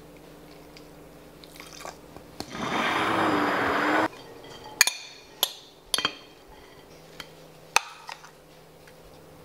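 Stick blender running in a glass measuring cup for about a second and a half, puréeing chickpeas into hummus, then cutting off abruptly. After it come several sharp clinks of a spoon against the glass cup.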